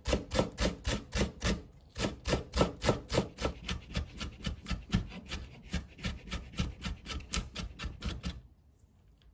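Kitchen knife chopping sliced green onion (negi) into finer pieces on a wooden cutting board, in quick, even strokes about five a second. There is a brief pause about two seconds in, and the chopping stops shortly before the end.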